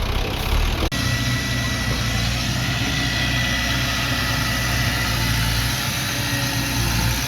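Heavy construction machine's diesel engine running steadily at low revs, with a brief break in the sound about a second in.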